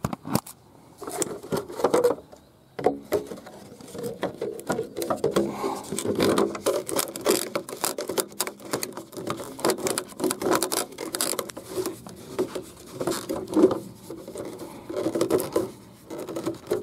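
Plastic rain-gutter downpipe and elbow fitting handled and pushed together close up: a rapid, irregular run of small clicks, knocks and scraping of the fittings against each other.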